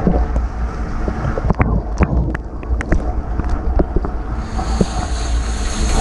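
Portable dishwasher running, heard from inside the tub through a GoPro's waterproof housing: a steady low pump hum under spraying, splashing water, with irregular sharp taps. The spray hiss grows louder about four seconds in.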